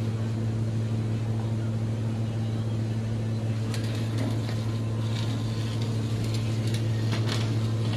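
A machine motor running with a steady low hum, with a few light clicks or taps in the second half.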